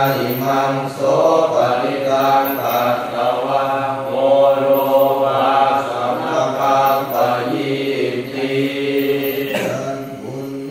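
Thai Buddhist chanting (suat mon): several voices reciting together in unison on a steady, level pitch, with a brief break near the end.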